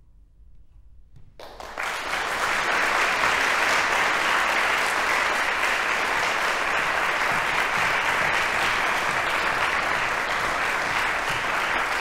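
Audience applauding: dense clapping breaks out suddenly about a second and a half in, after a near-quiet pause, and then carries on steadily.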